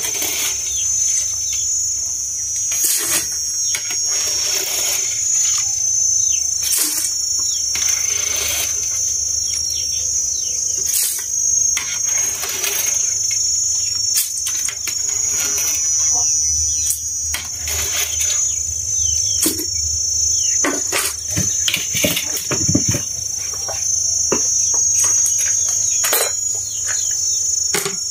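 Insects trilling steadily in a high-pitched buzz, with irregular clinks and scrapes of a metal ladle against a pot as boiled clams are scooped out into a bamboo basket.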